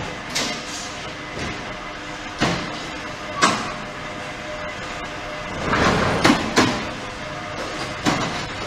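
QT6-15 automatic concrete brick-making machine running: a steady machine din with a sharp metal clank about once a second. A louder, noisier stretch with two bangs comes around six seconds in, and another clank near the end.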